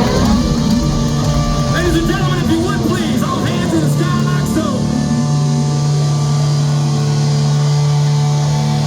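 A live rock band playing loud amplified music with distorted guitars. About four seconds in it settles onto a steady, held low chord.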